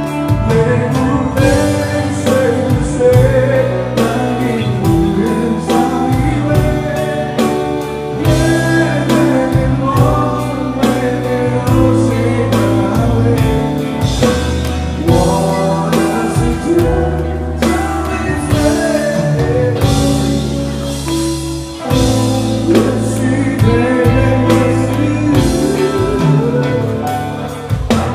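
Live band playing a pop-rock song: a singer's voice over guitar and bass, with a drum kit keeping a steady beat. There is a short break about three-quarters of the way through.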